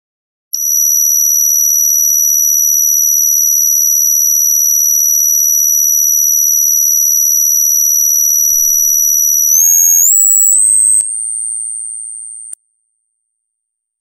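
Synthesized sci-fi scanning sound effect: a steady, loud, high electronic tone holds for about nine seconds, then jumps through a quick series of pitch steps and settles on a higher tone that fades and cuts off suddenly.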